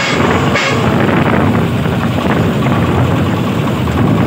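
Diesel engine of a công nông farm truck running steadily while the vehicle is driven on a test run.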